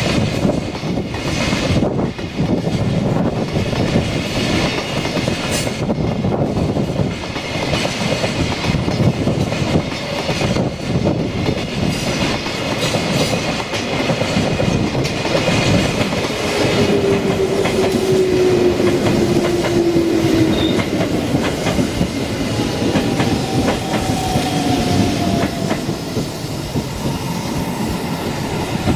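Long container freight train rolling past, its wagon wheels clacking steadily over rail joints. In the second half, a local electric train pulling into the station adds a steady tone that slowly falls in pitch as it slows.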